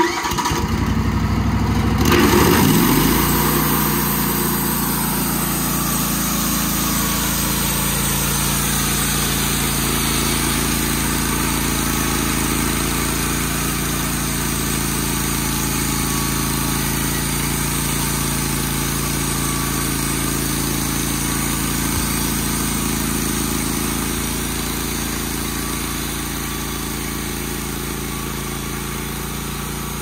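Wood-Mizer portable bandsaw sawmill's air-cooled gas engine coming up to speed within the first couple of seconds, then running steadily under load as the band blade makes a lengthwise pass through a small pine log.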